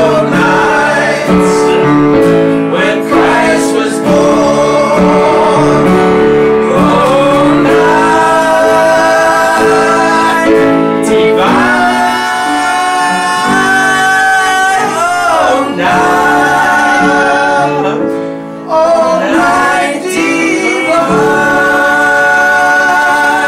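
A small group of men and women singing a Christmas carol together in long held notes, accompanied by piano and acoustic guitar.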